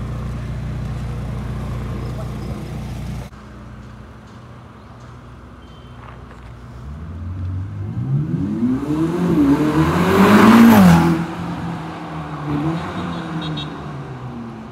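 A steady low engine hum that stops abruptly about three seconds in; then a Ferrari SF90 Stradale's twin-turbo V8 accelerates past, its note rising in pitch and loudness to a peak about ten seconds in and falling away as the car drives off, with a shorter rise in revs a couple of seconds later.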